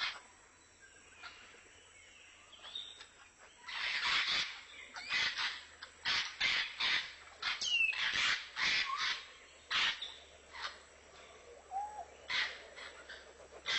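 African grey parrots calling: repeated short, sharp squawks and clicks in clusters, with a clear falling whistle about eight seconds in.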